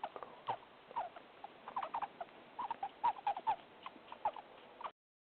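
Gerbil squeaking: a quick, irregular string of short squeaks over a faint hiss, cutting off near the end.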